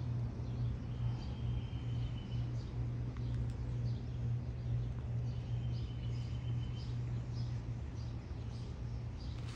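Outdoor ambience: a steady low hum with faint bird chirps scattered through it, and two thin high whistled notes, each held about a second and a half.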